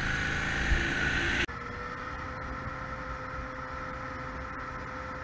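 Motorcycle engine running at a steady, low town speed with wind and road noise, as picked up by a camera on the bike. About a second and a half in the sound cuts abruptly to a quieter, steady engine hum with one held tone.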